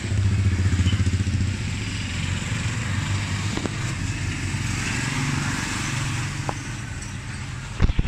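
A small engine running with a pulsing low hum, louder for the first second and a half and then settling to a steady idle. A few sharp knocks come near the end.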